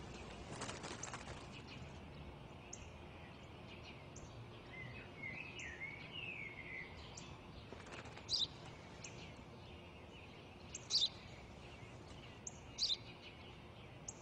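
Sparrow chirping: short sharp chirps every second or two, the loudest in the second half, with a brief warbling bird song around five seconds in, over faint steady outdoor background noise.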